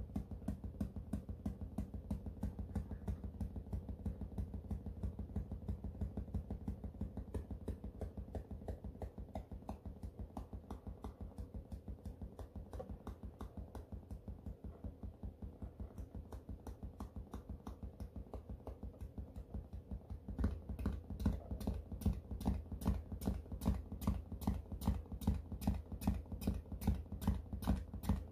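No-input feedback from a Behringer MX602 mixer, its outputs patched back into its inputs, pulsing in a fast steady rhythm of low, clicky throbs. About twenty seconds in, as the knobs are turned, the pulses grow louder and harsher, with sharper clicks.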